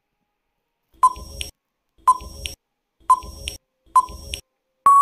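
Quiz countdown timer sound effect: four short beeps about a second apart, one for each number counted down, then a longer steady beep starting just before the end as the count runs out.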